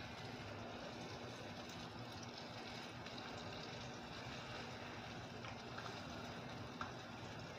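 Egg-and-flour-coated eggplant frying in oil in a skillet over a wood fire, a steady faint sizzle. A few small clicks come late, the sharpest about seven seconds in.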